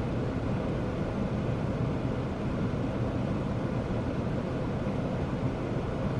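Steady low rumbling noise with no distinct knocks or voices.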